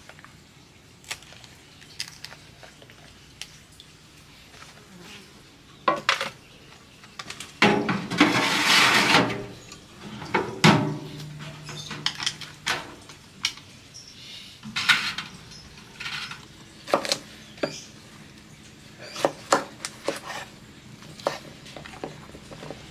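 Kitchen handling sounds: scattered clinks and knocks of cookware and a knife on a wooden board, with a louder noisy stretch of about two seconds roughly a third of the way in.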